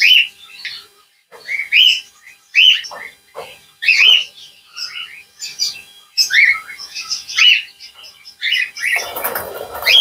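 Cockatiels chirping: short rising chirps, one to two a second, with a harsher, noisier burst near the end.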